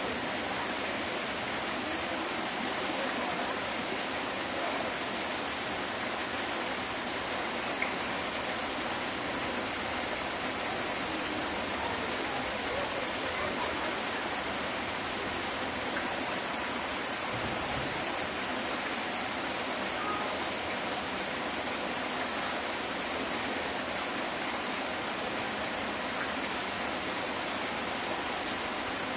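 Steady rushing of running water, even and unbroken throughout.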